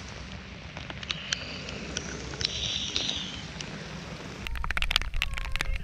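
Rain falling on the lake and boat, with scattered drops ticking close by. About four and a half seconds in it turns into a louder, dense patter of drops striking close to the microphone.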